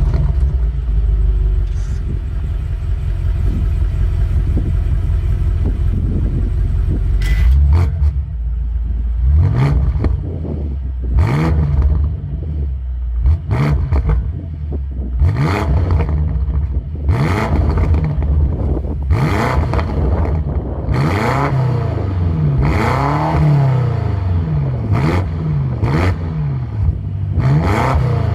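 2018 BMW M5 F90's twin-turbo 4.4-litre V8 exhaust. It runs with a deep steady rumble for the first several seconds, then is revved again and again, its pitch rising and falling over and over, with sharp cracks among the revs.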